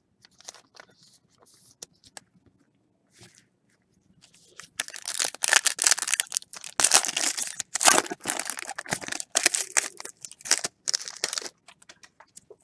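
A baseball card pack's wrapper being torn open and crinkled by hand: a few faint handling clicks, then from about four and a half seconds in a loud, irregular ripping and crackling that stops about a second before the end.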